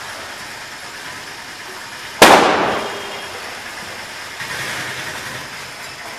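A single loud bang about two seconds in, dying away over about a second, over steady background noise.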